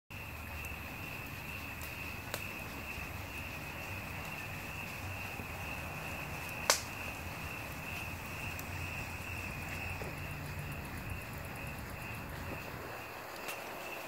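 Wood fire burning in a screened metal outdoor fireplace: a low rumble of flames with scattered crackles and one sharp, loud pop about halfway through. A steady high insect trill, like crickets, goes on behind it.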